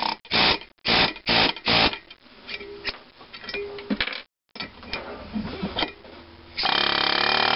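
Pneumatic air hammer driving a thin-wall bronze valve guide liner into a cast-iron engine cylinder head: about four short bursts in the first two seconds, then quieter clicks of the tool being handled. Near the end the hammer starts a loud, continuous run.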